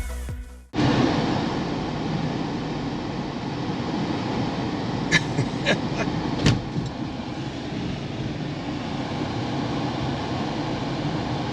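Music cuts off within the first second, giving way to a car driving, with steady road and engine noise. Three short sharp knocks come about five to six and a half seconds in.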